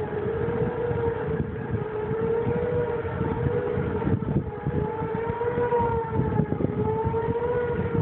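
Outdoor warning siren sounding a steady tone that wavers gently up and down, sounded for a severe thunderstorm warning. Wind rumbles on the microphone underneath.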